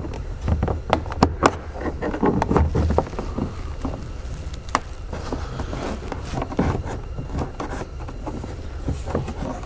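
Plastic rear pillar trim panel of a Ford Focus being pried off with a plastic clip removal tool: scattered clicks, knocks and creaks as the panel flexes against the retaining clips still holding it, over a low steady rumble.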